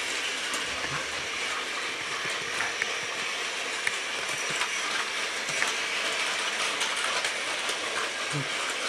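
Battery-powered Plarail toy trains running on plastic track: a steady whirr of small motors and gearboxes, with light clicks and rattles of wheels and wagons over the track.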